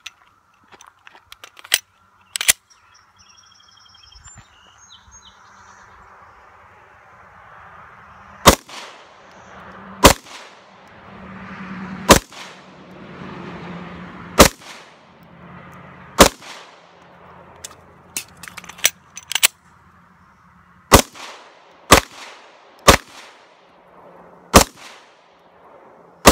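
Smith & Wesson M&P9 9mm pistol firing ten single shots, each ringing out briefly. The first four come about two seconds apart and the last six come quicker, about one a second. Two sharp clicks come in the first few seconds before the shooting.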